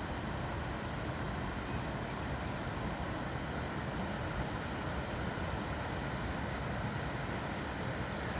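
Steady rushing of water at a river lock, an even noise without a break.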